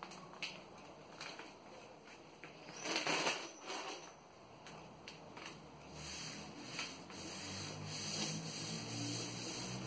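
Self-adhesive contact paper crackling and rustling as the sheet is laid onto a cabinet door wetted with detergent water, with a louder rustle about three seconds in. From about six seconds in, hands rub steadily across the sheet, smoothing it flat.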